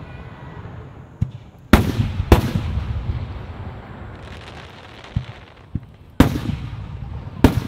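Aerial fireworks shells bursting with loud booms: two close together about two seconds in, another about six seconds in and one near the end. Fainter thuds fall between them, and each boom trails off in a long rolling rumble. A soft crackle comes around the middle.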